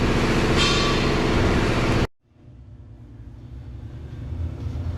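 Loud, steady machine drone with a low humming tone, cut off abruptly about two seconds in, followed by a much quieter low hum that slowly builds.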